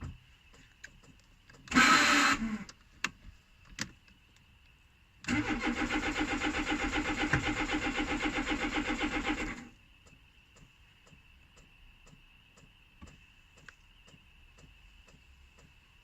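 Peugeot 1007's starter motor cranking the engine for about four seconds in a steady rhythmic churn, then stopping without the engine catching: a no-start, which the owner puts down to no power reaching the fuel pump. A short loud burst of noise comes about two seconds in, before the cranking.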